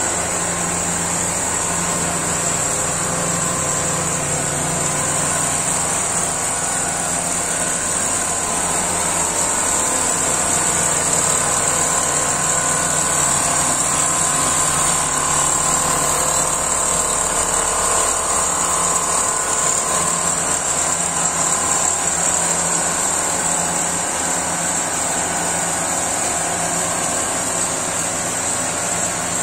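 Single-head computerised quilting machine running steadily as it stitches, a constant mechanical drone of the sewing head and motors.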